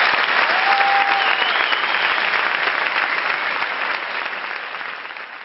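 Audience applauding, slowly fading toward the end.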